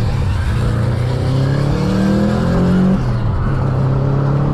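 Subaru WRX STi's turbocharged flat-four engine accelerating hard from a launch, its pitch rising under full throttle, dropping with an upshift about three seconds in, then climbing again in the next gear.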